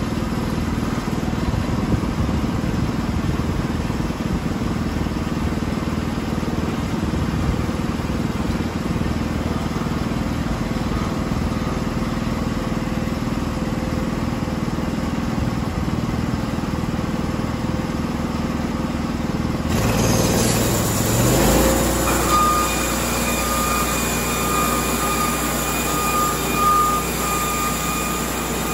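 Norwood HD36 portable bandsaw mill's gas engine running steadily. About two-thirds of the way through the sound brightens with a high whine as the band blade runs and the saw head is pushed forward into the log to start a cut.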